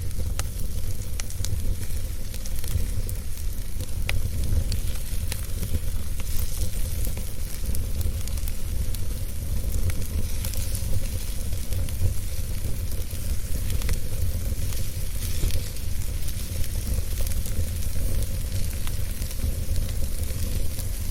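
Wood fire crackling in a fireplace: scattered sharp pops and snaps over a steady hiss and a low rumble.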